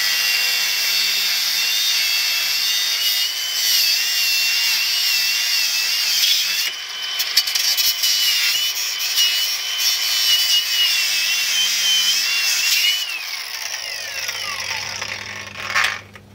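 Handheld power tool cutting, its motor whine wavering as it bogs and recovers under load, then winding down near the end as the trigger is released.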